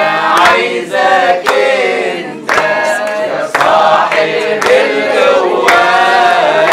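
Many voices singing a worship song together, with a sharp clap-like beat about once a second.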